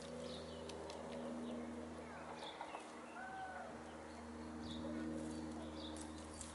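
Brown laying hens foraging, giving soft low clucks and one short arching call about three seconds in, over a steady low hum. Faint high chirps and a few light clicks come and go.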